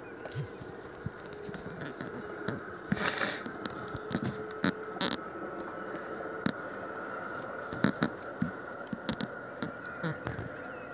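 Scattered, irregular sharp taps and clicks, one or two a second, over a low steady background hiss with a faint steady tone.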